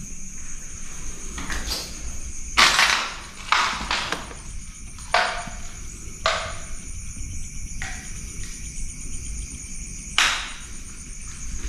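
Slow footsteps crunching through grass and debris, about six steps with the first one loudest, over a steady high chirring of night insects.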